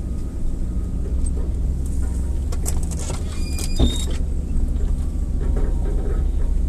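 4x4 off-road vehicle's engine running steadily at low revs. Clicks and rattles come in the middle, with one sharper knock a little before four seconds in.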